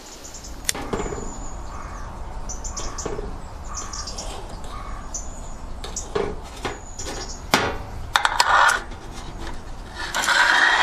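Sharp clicks and metallic clatter of a steel alcohol burner tray being lit with a long gas lighter, then a louder scrape about ten seconds in as the tray is slid in under the model steam boiler. Birds chirp in the background.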